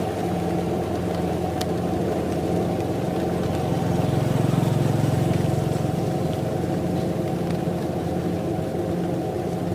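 Rice combine harvester's diesel engine running steadily under harvesting load, swelling a little louder about halfway through.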